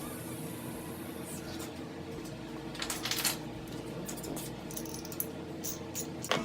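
A few light metallic clinks and taps of small metal parts being handled, over a steady low hum.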